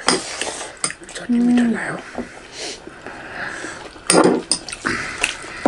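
Close-miked eating sounds: mouth clicks and lip smacks from chewing food eaten by hand, with a short hummed "mm" about a second and a half in and a brief sniff-like hiss a little later.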